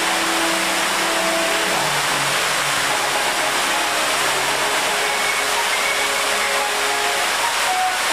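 Epcot's Fountain of Nations jets spraying and splashing: a loud, steady rush of water. Faint held music notes run underneath, changing pitch about two seconds in.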